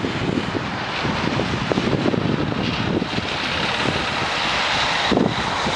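Wind buffeting the microphone during a snowstorm, a gusty rumble with a steady hiss over it. The hiss swells about halfway through and cuts off sharply about five seconds in.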